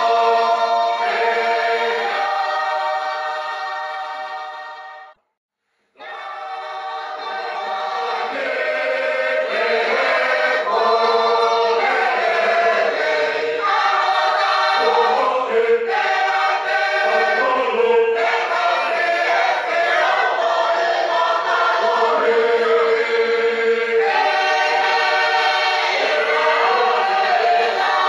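Congregational choir singing a Tongan hymn in parts. A held chord fades and stops about five seconds in, and after a short silence the singing starts again.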